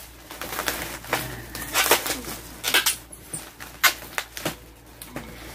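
Black plastic packaging wrap being pulled and crumpled by hand, rustling and crinkling in irregular bursts.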